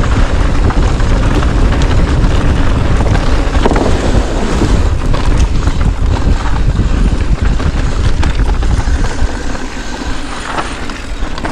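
Wind buffeting the microphone over the rumble and rattle of tyres on a rough dirt trail as a bike rides fast downhill.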